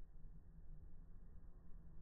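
Near silence: a faint, steady low rumble of room noise, with no distinct sound.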